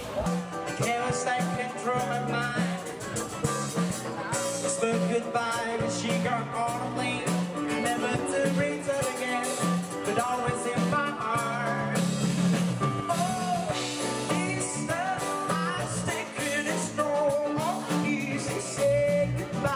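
Live rock band playing, with drums, electric guitars and keyboard under a singing voice and a steady beat.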